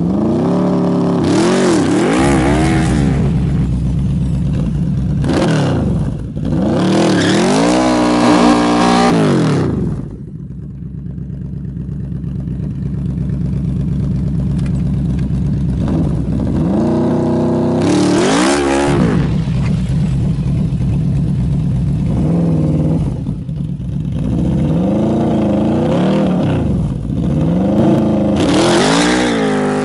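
Yamaha V-Max's V4 engine revved repeatedly from idle while the bike stands still: quick throttle blips, a longer climb to high revs and back about eight seconds in, a quieter stretch at idle, then another rev and a run of several blips near the end.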